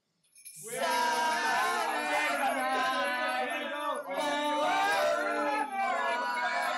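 Music with a group of voices singing together, starting about half a second in.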